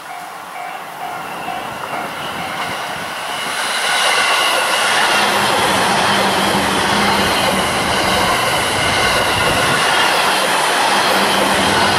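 E531 series electric commuter train approaching and passing close by on the Joban Line. The sound of its wheels on the rails swells over the first four seconds to a steady, loud roar, with a low motor hum under it.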